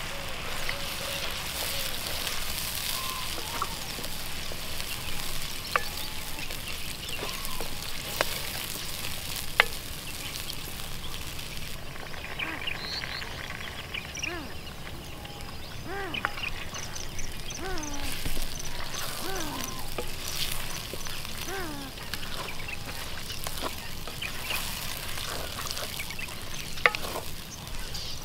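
Food sizzling as it fries, with a few sharp clinks of a utensil.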